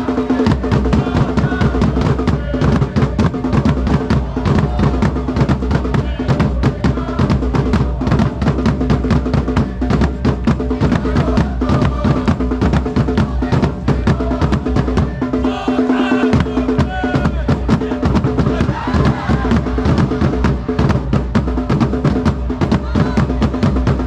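A football supporters' drum section beats bass drums and snare-type marching drums with mallets in a fast, even rhythm while the crowd in the stand sings a chant over it. The low drumming drops out briefly about sixteen seconds in.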